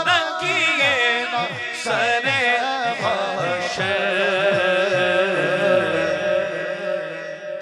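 Amplified male voices singing a naat, with drawn-out, ornamented notes that waver in pitch, over a low repeated pulsing backing. The sound eases off near the end.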